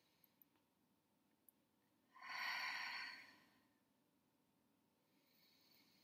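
A woman's long, slow breath out, heard as a sigh about two seconds in and lasting about a second and a half, with a much fainter breath near the end. It is the deliberate deep breathing of a seated meditation.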